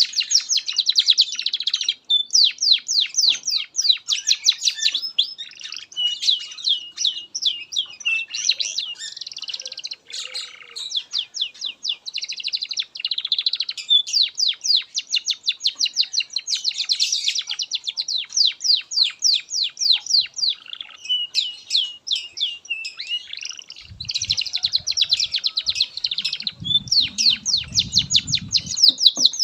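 Domestic canary singing a long, unbroken song of rapid repeated trills, switching to a new phrase every second or two. A faint low rumble comes in near the end.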